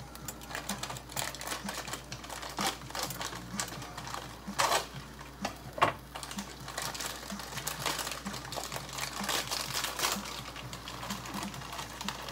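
Plastic snack packaging being handled and opened: irregular crinkling and sharp clicking, with a few louder crackles about halfway through.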